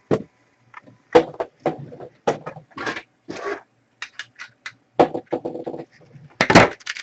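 Packaging being handled and opened: a quick run of crinkles, scrapes and rips, with a few sharp knocks.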